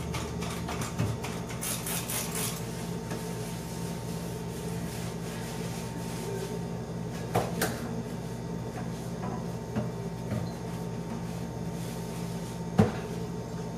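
Hand-washing dishes at a kitchen sink: a few sharp knocks and clinks of dishes against the sink, the sharpest near the end, over a steady low hum.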